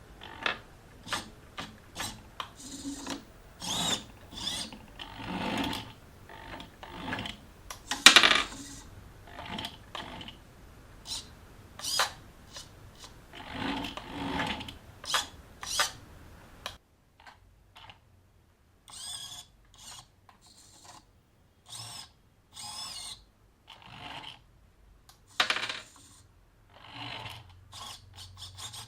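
Small 3D-printed plastic parts of a robotic arm being handled and fitted together: irregular clicks, knocks and short rubbing sounds, with one loud knock about eight seconds in.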